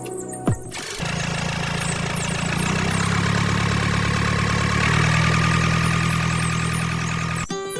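A small motor running steadily, starting about a second in and stopping shortly before the end, with a brief stretch of music before and after it.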